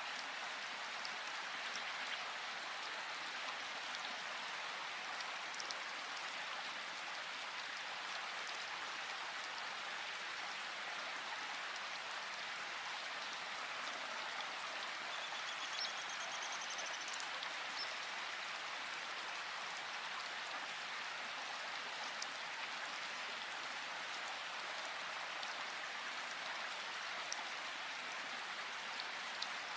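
Steady rushing water of a river. A brief, high bird trill comes about halfway through.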